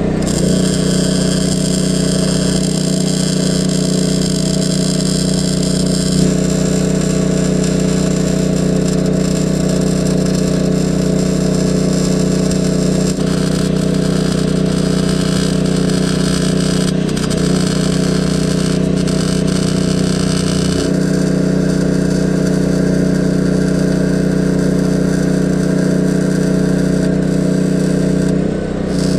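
Harbor Freight portable generator's engine running steadily under the load of a MIG welder, with the welding arc hissing and crackling over it as beads are laid.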